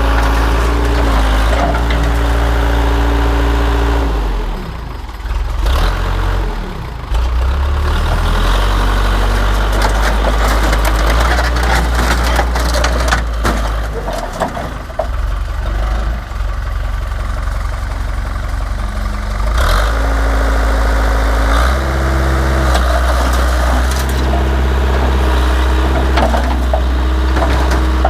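Case 580 backhoe engine running and working under load, its speed rising and falling a few times, with scattered clanks, bangs and crunching of sheet metal as the truck body is torn apart.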